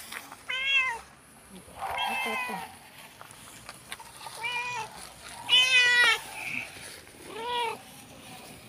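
Cat meows: five short meows that rise and fall in pitch, spaced about one to one and a half seconds apart, the fourth, a little past halfway, the loudest and longest.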